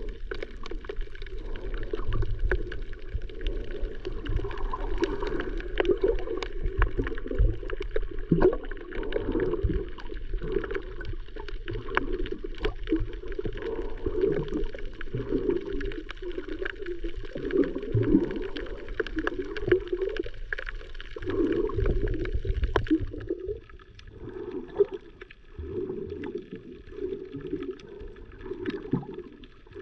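Muffled water sloshing and gurgling, as heard through a camera held underwater while snorkeling; it grows quieter about three quarters of the way through.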